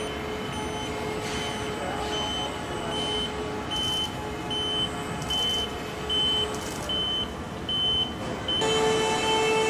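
An electronic beep repeating about every two-thirds of a second over a steady mechanical hum. About nine seconds in, the hum becomes louder and fuller.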